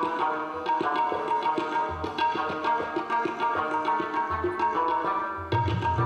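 Tabla played in quick, dense strokes, with a deep bass drum stroke from the left-hand drum swelling in a few times. Beneath it rings a steady pitched layer, played on an Afghan rubab.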